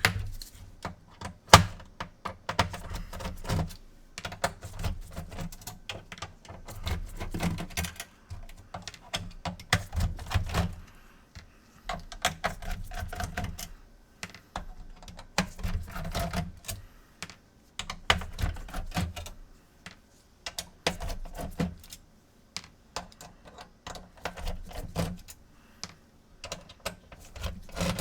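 Irregular light clicks, taps and clatter of plastic and metal parts as a PS4 console is handled and taken apart by hand, with dull bumps against the work surface.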